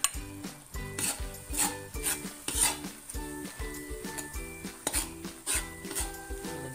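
A metal spoon scraping and stirring sizzling shrimp paste in a metal wok, in quick irregular strokes. Background music with a steady beat plays underneath.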